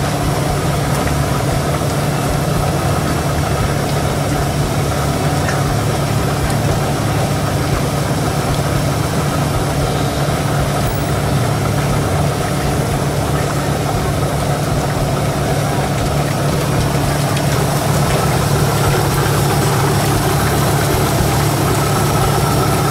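A steady low mechanical hum, like an engine running, that holds unchanged throughout, with voices faintly in the background.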